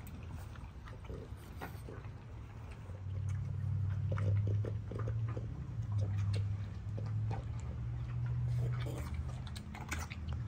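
French bulldogs eating dry kibble from bowls, crunching with scattered small clicks. A low steady hum joins about three seconds in.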